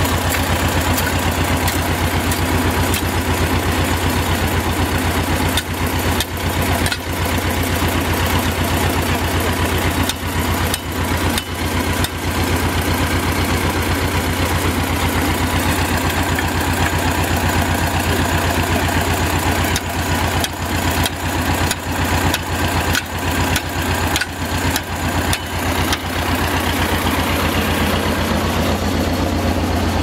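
An engine idling steadily close by: a low, even drone with a fast, regular pulse.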